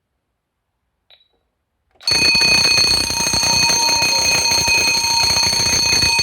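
Electric fire alarm bell on an automatic fire alarm system starts ringing loudly about two seconds in, a fast continuous ringing. It is a false alarm set off by a faulty heat detector with no heat applied. A faint click comes just before it.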